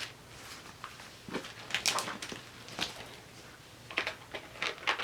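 Paper and sticker sheets handled on a desk: scattered light rustles and small taps, a handful of them over a few seconds.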